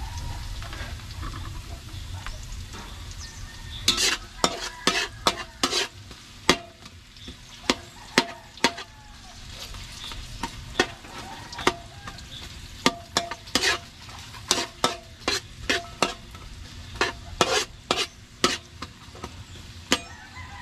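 Garlic and chopped onions sizzling in hot oil in a metal wok while being sautéed. About four seconds in, a metal spatula starts stirring them, scraping and clacking against the wok in quick, irregular strokes.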